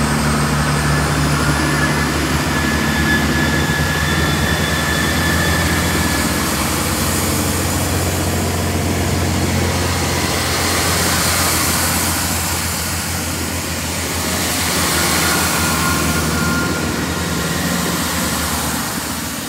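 Underfloor diesel engines of a Class 166 Turbo diesel multiple unit running steadily as the train pulls out and draws away. A faint high whine rises about a second in, and the sound grows a little quieter near the end.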